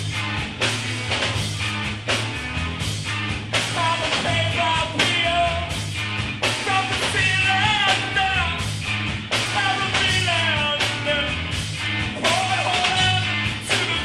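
Rock band playing live: drums keep a steady beat under a bass line and guitar, and a lead singer comes in about three and a half seconds in.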